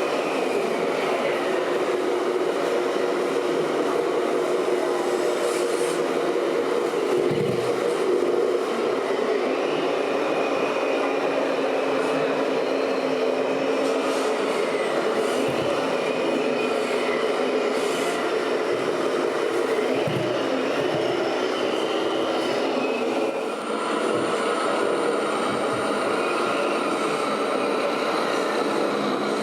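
Scale RC trucks running: a steady mechanical drone with several held engine-like tones, and higher electric motor whines that rise and fall as the models change speed.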